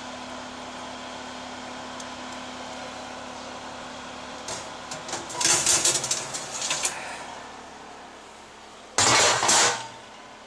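Oven fan humming steadily. About halfway through there are clattering, rubbing handling knocks, after which the hum drops away. Near the end comes a short, loud burst of noise in two pulses.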